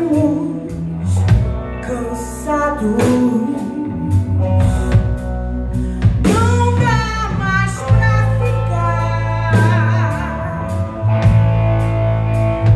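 Live band playing: electric guitars, electric bass and a drum kit, with a woman singing into a microphone.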